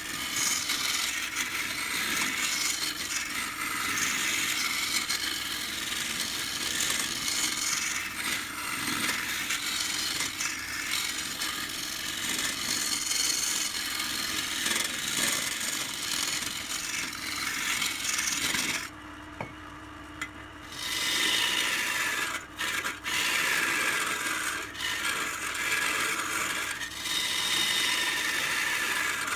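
A turning tool scraping and cutting into wood spinning on a lathe, a continuous rasping noise. It stops for about two seconds around two-thirds of the way through, leaving a faint steady hum, then resumes with a few short breaks.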